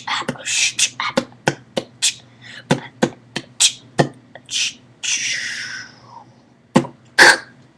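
Beatboxing: a rhythmic beat of sharp mouth clicks and pops, a few per second, broken by hissing cymbal-like sounds, with one long hiss about five seconds in and two louder pops near the end.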